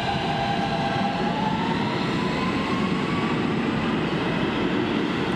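New York City Q subway train moving through a station, its motors whining and rising in pitch over the first three seconds as it speeds up, over a steady rumble of wheels on the rails.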